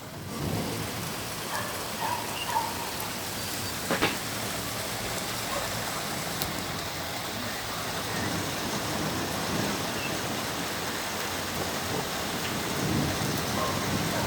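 Steady rain falling and pattering on a surface, coming up in level just after the start, with a few louder single drop ticks scattered through it, the clearest about four seconds in.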